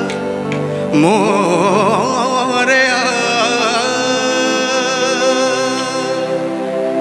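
Male voice singing a drawn-out line of a Hindi devotional song to Ganesh, with heavy vibrato, coming in about a second in over steady sustained instrumental accompaniment.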